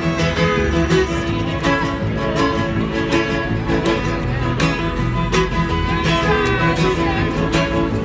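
Acoustic string trio playing a folk song: fiddle, acoustic guitar and upright bass, with a woman singing.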